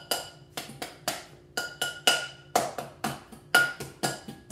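A stainless steel cooking pot struck with the bare hand in a steady beat, about two strikes a second, several of them ringing briefly with a metallic tone.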